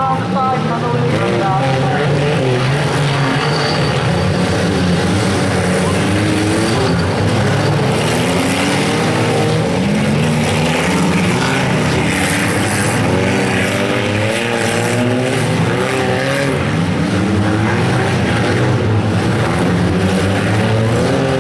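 Several front-wheel-drive race cars running on a dirt figure-eight track, their engines overlapping and revving up and down as they speed up and back off.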